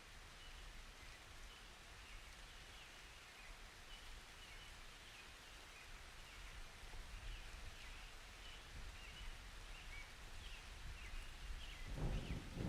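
Faint, soft rain with light high chirps over it. A low rumble of thunder begins building near the end.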